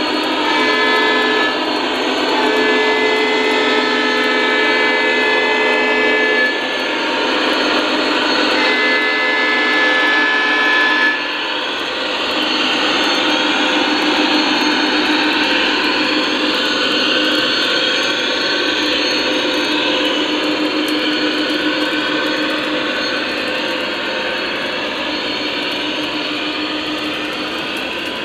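Sound system of Lionel O scale SD60 model diesel locomotives: a diesel horn chord sounds briefly, then in two long blasts ending about eleven seconds in, over the steady rumble of the engine sound and the train rolling on three-rail track. Afterwards only the steady rolling rumble goes on as the train passes.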